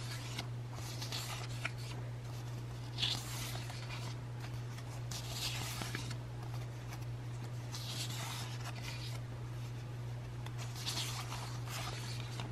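Paper sticker sheets rustling and sliding against each other as they are flipped through by hand, a short swish every two to three seconds, over a steady low hum.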